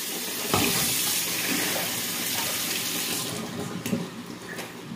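Kitchen tap running, with hands being rinsed under it, then shut off about three seconds in. A few light clicks and knocks follow.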